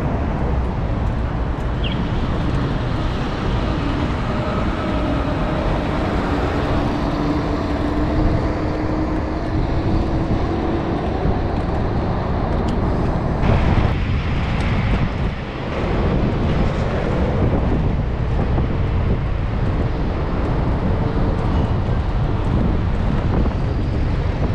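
Wind rushing over the microphone of a camera on a moving bicycle, with road traffic underneath. A vehicle's engine hum, pitched slightly upward, passes through the middle.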